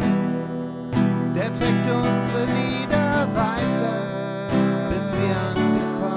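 Acoustic guitar strummed in a steady rhythm, an instrumental passage of a song.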